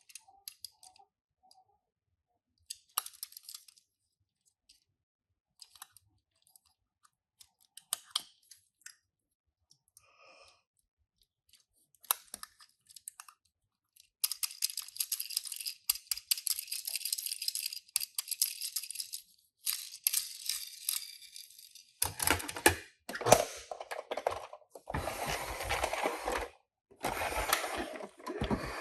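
Toy car packaging being handled and opened: scattered clicks and small taps, then from about halfway a continuous crinkling, and in the last seconds louder bursts of tearing and crumpling.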